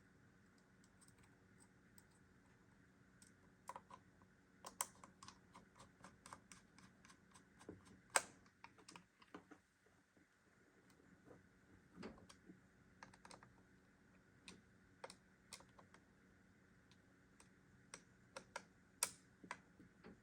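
Faint, irregular light clicks and taps, a few a second in clusters with pauses, over a faint steady hum.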